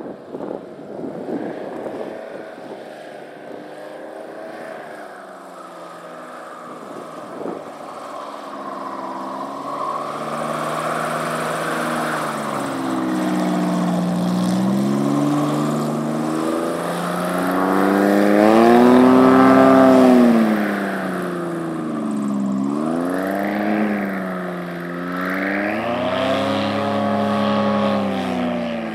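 2002 Diamondback airboat's 4.3 V6 engine and propeller running, the engine pitch rising and falling again and again as the throttle is worked. It is loudest about two-thirds of the way through as the boat passes close.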